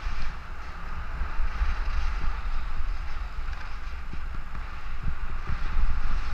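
Wind buffeting a helmet camera's microphone as a skier descends, a steady low rumble with uneven gusts, over the continuous hiss of skis sliding and carving on the snow.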